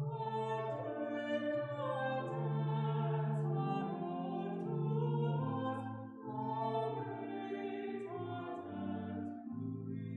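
A hymn sung by voices to a pipe organ accompaniment, the words sung in long held notes over steady sustained organ chords. The singing stops just before the end while the organ carries on.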